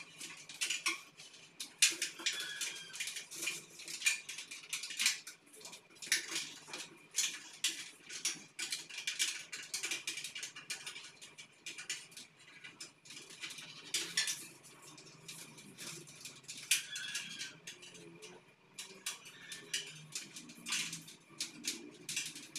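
Black electrical wire being pulled through a metal ceiling grid, rubbing and tapping against the metal channels in a dense run of irregular clicks, rattles and scrapes.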